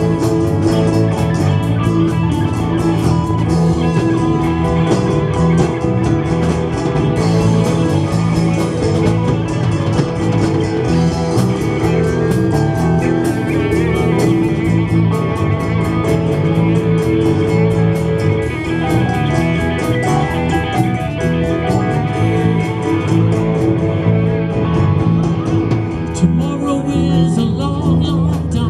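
Live band playing blues-rock: electric guitars over keyboard and a drum kit keeping a steady beat.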